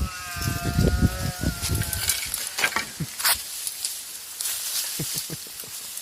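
A winded person fighting for breath: a thin, high wheezing tone for about the first two seconds, then crackling, clicking gasps.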